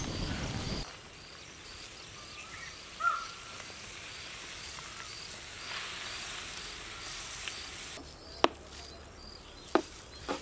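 Sugar poured in a stream into a large steel pot of thick mango mixture, a soft hiss at the start and again about six seconds in, over a steady pulsing chirp of insects. Near the end come a few sharp knocks as a spoon starts stirring against the pot.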